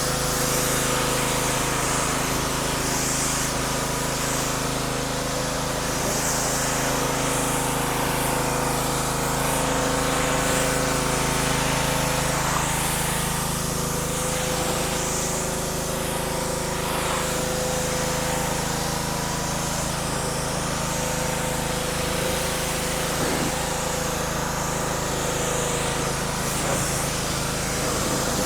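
PowerSmart 3200 PSI gas pressure washer running steadily, its small engine droning under a spray hiss that swells and fades.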